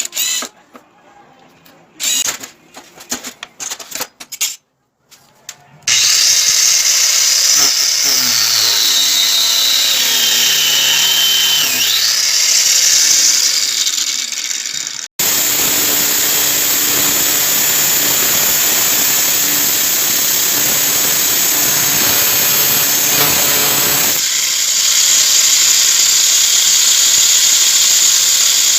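Angle grinder running at full speed: a loud, steady whir with a high whine that sinks in pitch for a few seconds and comes back up. A few short knocks come before the motor starts.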